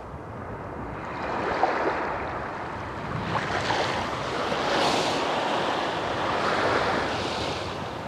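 Small waves washing up on a beach, the surf swelling and falling back about three times.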